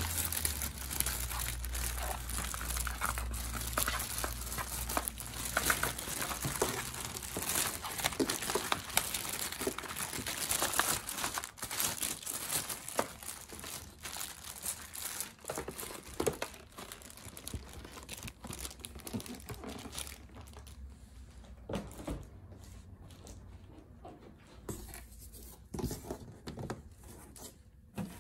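Clear plastic packaging bag crinkling and rustling as it is handled among cardboard packing, dense for most of the stretch and thinning to scattered rustles and light taps in the last several seconds.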